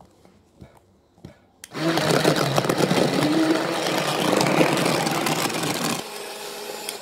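USB-rechargeable portable juice-cup blender running on ice with chopped fruit. A few light clicks come first, and the motor starts about two seconds in with a loud, rattling churn. Near the end it drops to a quieter, steady hum.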